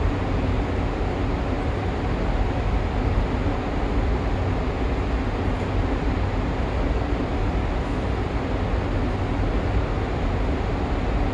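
Steady low hum and rumble inside a Toei 5500 series subway car standing at a station, with no traction-motor whine.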